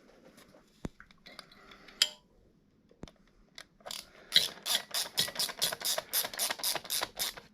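A hand socket ratchet being worked back and forth to tighten a fastener, its pawl clicking in a quick even run of about four clicks a second from about four seconds in. Before that, a few scattered small tool clicks and a sharp knock about two seconds in.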